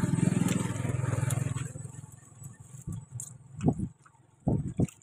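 A motor vehicle passing close by: a low, rapidly pulsing engine rumble that swells in the first couple of seconds and then fades away. A few brief low thuds follow near the end.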